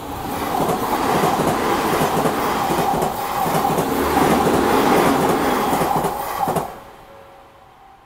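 Odakyu Odawara Line electric commuter train passing over a level crossing: a steady rush of wheels on rail with rapid clicks of the wheels over the rail joints, cutting off sharply about six and a half seconds in as the last car clears. The crossing's warning bell rings under it.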